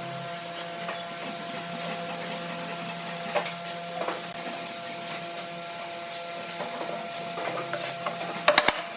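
Workshop woodworking sounds: light scraping and scattered knocks of wood being worked, over a steady machine hum. A quick cluster of sharp knocks comes near the end.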